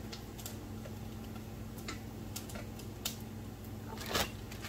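Scattered crinkles and clicks of a large plastic zip-top bag being handled, the loudest rustle about four seconds in, over a steady low hum.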